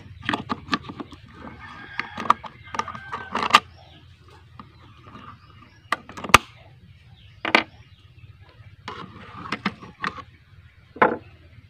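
Screwdriver clicking and scraping against a mini chainsaw's steel chain-brake band and plastic clutch cover as the band is pried loose. A quick run of clicks and knocks over the first few seconds, then scattered single clicks and taps, the sharpest about halfway through.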